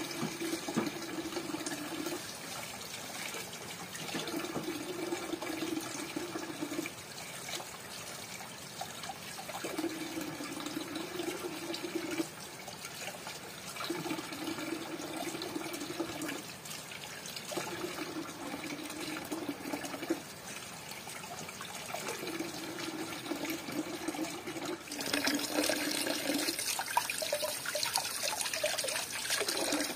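Tap water running in a steady stream into a metal basin of water, splashing as apples are rinsed under it; a low tone in the splashing comes and goes every few seconds. Near the end the splashing turns louder and brighter as hands are washed directly under the stream.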